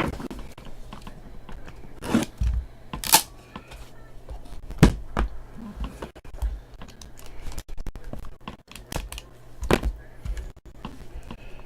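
Trading cards and their plastic packaging being handled: scattered light clicks, taps and rustles, with a few sharper knocks about 2, 3, 5 and 10 seconds in.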